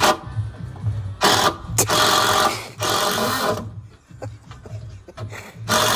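Cordless drill driving screws into timber deck framing, running in short bursts of about a second or less, four times, the last one near the end.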